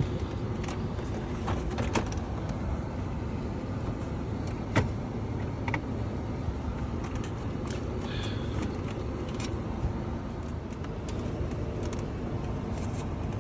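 Plastic dash trim and the new head-unit assembly being pushed into a Toyota Tundra's dash: a few scattered clicks and knocks as clips snap into place, the sharpest just under five seconds in, over a steady low background rumble.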